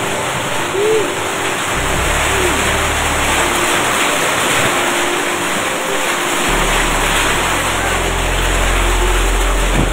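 Heavy rain mixed with hail pelting down, a dense steady hiss. A low steady drone comes in underneath about two seconds in and deepens later on.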